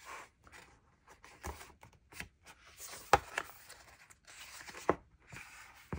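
Paper sticker sheets being handled: soft, intermittent rustling and crinkling, with a few sharp clicks or taps, the loudest about three seconds in and another near the end.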